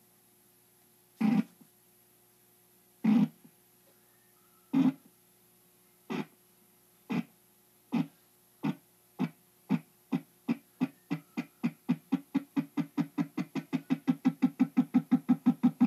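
A short low pulsed tone played over a CB radio, repeating about two seconds apart at first and speeding up steadily to about four a second. It is a noise keyed onto the channel to jam other operators.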